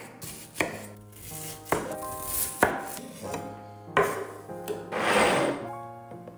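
Chef's knife chopping a red onion on a bamboo cutting board: a few sharp knocks about a second apart, then a longer scrape as the diced onion is pushed off the board into a glass bowl. Background music plays underneath.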